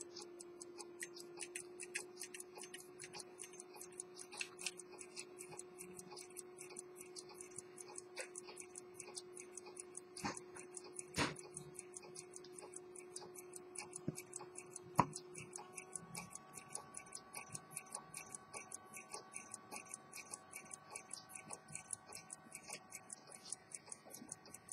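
Antique Swiss ultra-thin pocket watch (1840–1865) ticking, a quick, even train of light ticks from its balance and escapement. A few sharper clicks stand out about ten to fifteen seconds in.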